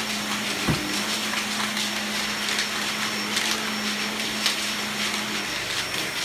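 Shark upright vacuum cleaner running on carpet, a steady hum and hiss, with debris clanking around in the dirt cup, whirled by the cyclone. A sharp knock comes about a second in, and lighter clicks follow.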